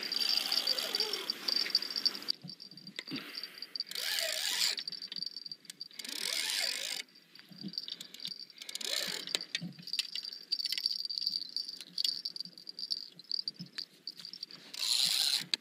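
Fishing reel being cranked in spurts, with rattling clicks and rod-handling noise, while a hooked fish pulls against the bent rod.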